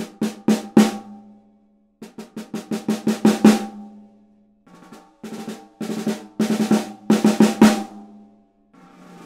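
Craviotto Heritage 6x14 solid maple snare drum played with sticks: short phrases of quick strokes and accents, each phrase growing louder, separated by brief pauses, every stroke leaving a short ring. Near the end a soft roll begins and swells.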